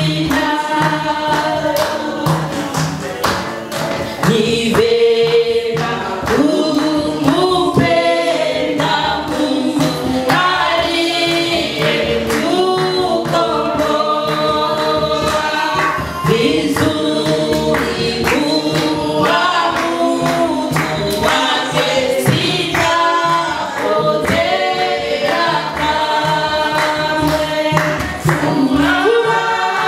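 Church choir singing a gospel song, several voices together in sustained phrases.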